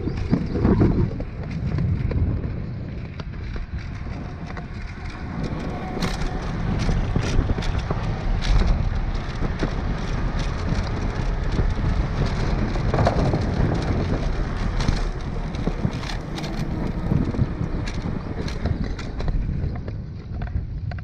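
Wind buffeting the microphone and road rumble from a recumbent trike rolling along, with scattered clicks and rattles throughout.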